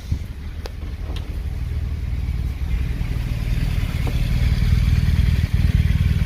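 A vehicle engine running steadily with a low, pulsing rumble that grows gradually louder, with a few sharp clicks in the first second.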